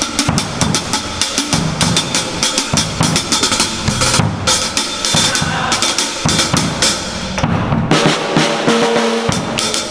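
A fast drum beat with bass drum and snare hits, for a corrido tumbado.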